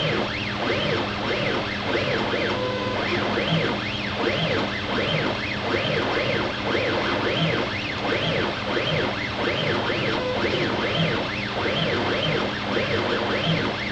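CNC router stepper motors whining in a repeating rising-and-falling pitch, over and over, over a steady low hum, as the machine traces a dovetail-tail path in an air cut, a dry run with the bit clear of the wood.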